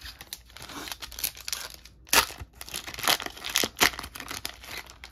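A MetaZoo trading-card booster pack's foil wrapper being torn open and crinkled by hand: a run of crackling tears and crinkles, loudest about two seconds in and again several times a second or so later.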